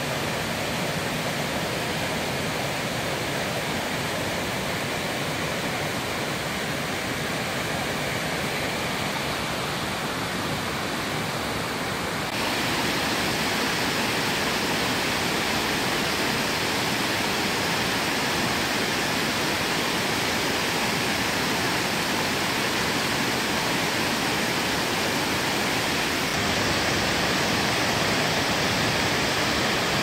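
Water rushing steadily over the low rocky cascades of a forest waterfall. The sound becomes abruptly louder and hissier about twelve seconds in.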